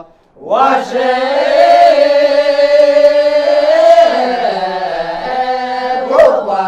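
Lisu multi-part unaccompanied choir singing long held chords in several voices, with the harmony shifting about four seconds in. A brief sharp click sounds near the end.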